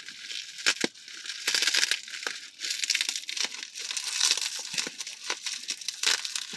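Clear plastic wrapping crinkling and tearing as it is pulled apart by hand, a continuous run of irregular crackles and rustles.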